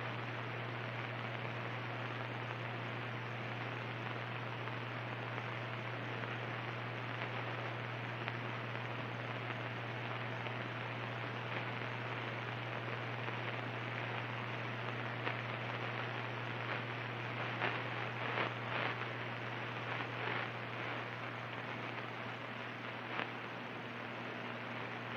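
Steady cockpit noise of a Cirrus SR22 in flight: an even hiss over a constant low hum from the engine and airframe, with a few faint clicks in the second half.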